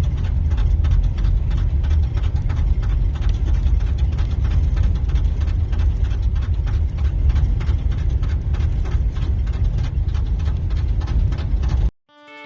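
Snow chains on a van's tyres clacking on the road in a rapid, even rhythm at low speed, over a deep road and engine rumble heard from inside the cab. It cuts off abruptly near the end.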